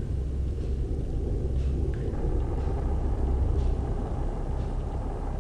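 Steady low rumble and hum with a faint hiss above it: background noise of a quiet room, with no distinct event.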